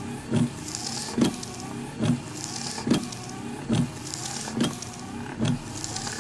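A steady rhythm of low thumps, about one every 0.85 seconds, with a hissing swish on every second thump, over a constant crackly hum.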